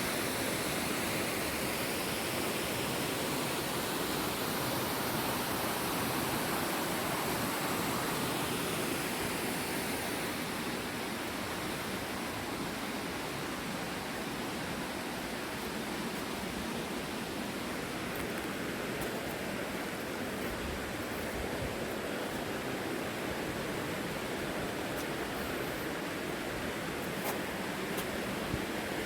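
Waterfall's steady rushing noise of falling water, with a few faint ticks in the last ten seconds.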